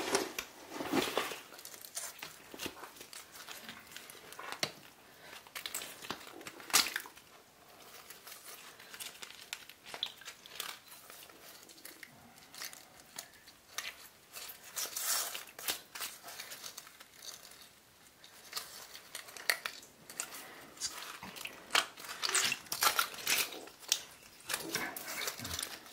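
Hand digging and scraping at wet mud and loose shale around a half-buried glass bottle: irregular crunching and scratching, with small clicks of stone.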